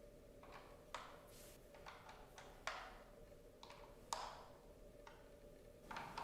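Sharp clicks and taps of hard plastic parts of a Dyson DC07 turbo brush head being handled and fitted, about half a dozen spread irregularly, over a faint steady hum.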